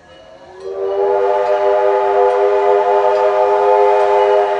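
Steam whistle of Ventura County Railroad No. 2 steam locomotive blowing one long, steady blast that starts about a second in, sounded as the train nears a road grade crossing.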